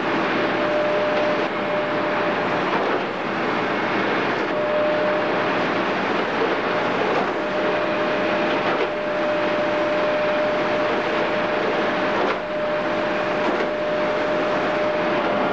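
Chain slat conveyor carrying empty fruit bunches, running as one steady mechanical noise with a constant thin whine through it. The noise dips briefly twice.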